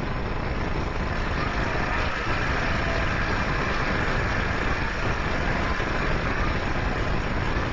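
Steady noise of a large outdoor rally crowd, an even din with no single voice standing out.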